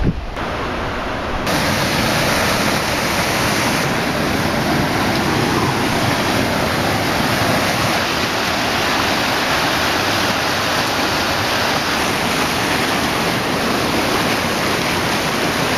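Rushing mountain stream cascading over rocks: a steady rush of water, which comes in abruptly about a second and a half in.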